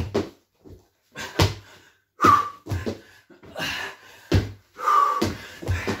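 Repeated thuds of hands and feet landing on a wooden floor during burpees, a thud every second or so, with heavy exhaled breaths and grunts between them.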